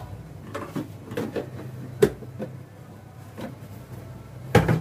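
Plastic spice containers and a spoon being handled and set down, making a run of knocks and clatters with two louder ones, about two seconds in and near the end. A steady low hum runs underneath.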